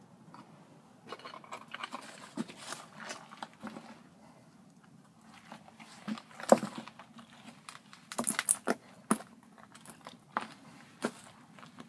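Footsteps crunching through dry leaves, twigs and loose stone debris, in uneven clusters with sharp cracks. The loudest crack comes about six and a half seconds in.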